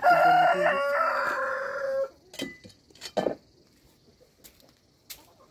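A rooster crowing once, a call of about two seconds that ends on a drawn-out, slightly falling note, followed by a few faint knocks.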